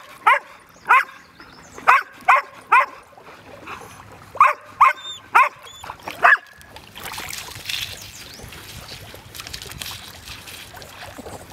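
A dog barking in short, high, yipping barks, about nine of them in quick groups of two or three, which stop about six seconds in.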